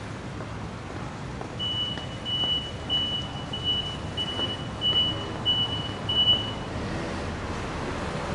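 A vehicle's reversing beeper sounding one high tone in a run of short beeps, about two a second, for about five seconds, over passing traffic noise.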